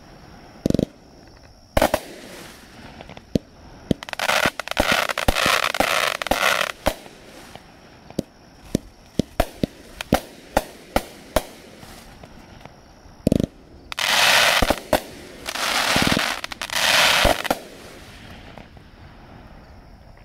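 TSky Thunderstruck 500 g, 30-shot consumer firework cake firing. Irregular sharp bangs and deeper launch thumps are broken by three long stretches of dense crackling: one about a fifth of the way in, and two close together in the last third. The shots thin out near the end.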